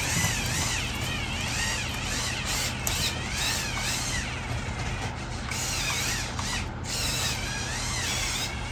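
Small electric motors and plastic gear train of a Mould King 17010 building-block dump truck whining as it drives, the whine wavering up and down in pitch over a steady low hum.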